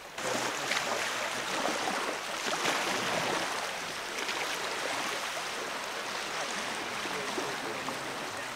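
Small waves lapping on a pebble shore: a steady rushing, crackling noise that starts abruptly about a quarter second in.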